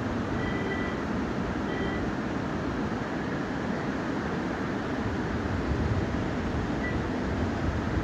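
Steady outdoor rushing noise of wind buffeting the microphone over the flow of a wide river. A few brief high chirps about half a second in, near two seconds, and near seven seconds.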